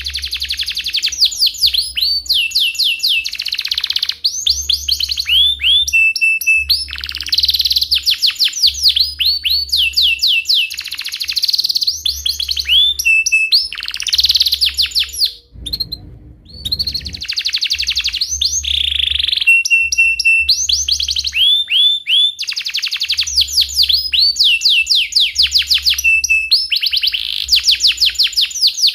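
Domestic canary singing a long, loud song of fast rolling trills, quick chirps and a few held whistled notes. The song breaks off briefly about halfway through.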